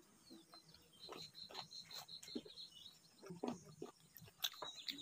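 Faint chewing and mouth sounds of eating sticky rice from a banana-leaf wrap, with short soft clicks and smacks. A bird chirps a quick run of high notes about a second in.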